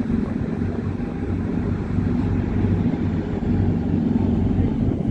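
Car ferry's engines running under way: a steady low drone with an even hum.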